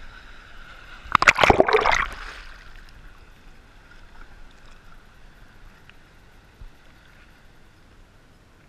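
Seawater splashing against a waterproof action camera held at the surface in the surf: one loud splash about a second in, lasting about a second, then softer sloshing of the water.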